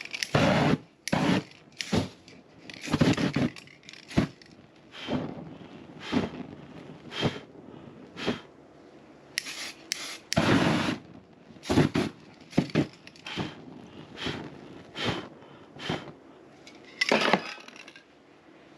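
A series of short scraping and rubbing strokes with a crackly edge, roughly one a second and uneven in spacing and length.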